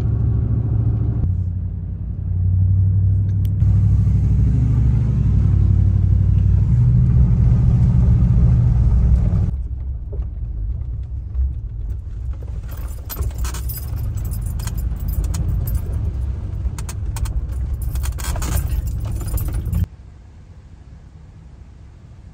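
A car's engine and tyres rumbling, heard from inside the cabin. Once it is on a rough dirt road, loose things in the cabin rattle and click over the bumps, and the noise drops off sharply near the end.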